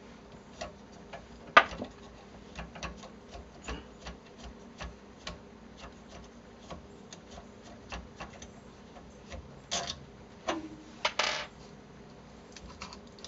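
Screwdriver backing screws out of a 3D printer extruder's mount: a string of small irregular clicks and ticks, with a louder click about one and a half seconds in. Near the end come a few longer scraping rattles as the extruder is handled.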